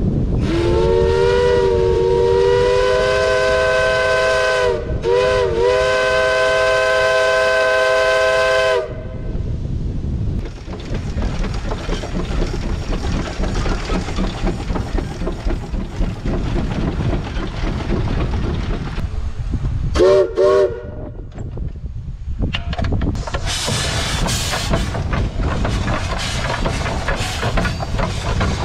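Steam whistle on a Case steam traction engine: one long blast of several notes at once that rises in pitch as it opens, dips twice briefly in the middle and cuts off after about eight seconds, followed later by two short toots. Near the end comes a loud hiss of steam.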